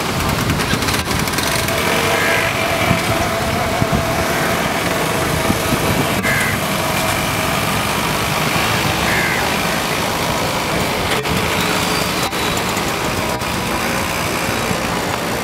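Small trucks, an auto-rickshaw and motorcycles driving through shallow floodwater on a road: engines running over a steady wash of noise as their wheels throw up spray.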